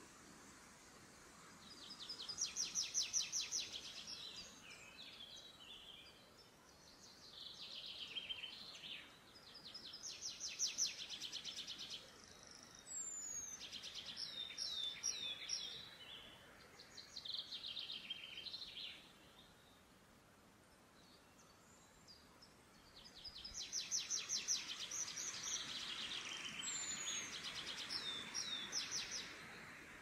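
Forest songbirds singing: about six short song phrases, each a rapid trill of high repeated notes lasting one to three seconds, with a pause of several seconds around the middle and a longer run of song near the end.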